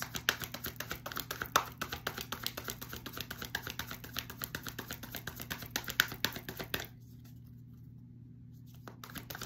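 A tarot deck being shuffled by hand: a quick run of light card clicks and flicks that stops about seven seconds in.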